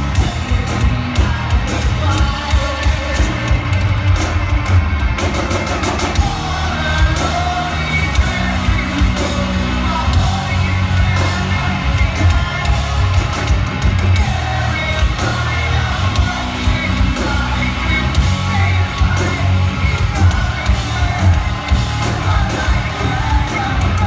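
Live rock band playing through a large PA, with a lead vocal singing over heavy drums and bass, recorded from within the audience.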